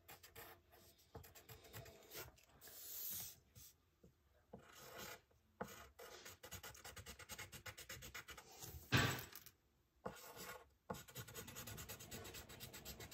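Wooden pencil scratching on paper as a drawing is sketched: irregular short strokes with brief pauses, and one louder scrape about nine seconds in.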